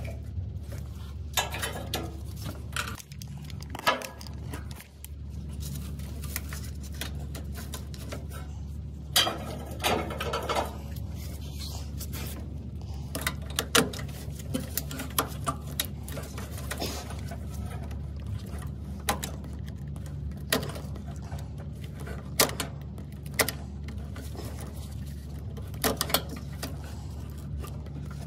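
Scattered sharp clicks and snaps of hands and a hand tool working on a truck's plastic wiring harness, over a steady low hum.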